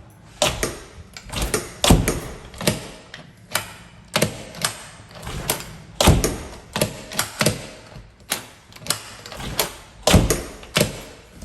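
Newly installed Schlage B60 deadbolt being worked back and forth, its bolt and thumbturn giving a long run of sharp, irregular metallic clicks and clacks, some in quick pairs.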